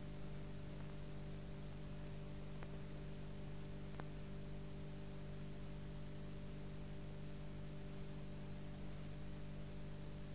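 Steady electrical hum, several low tones held without change, over a faint even hiss, with two faint ticks a few seconds in.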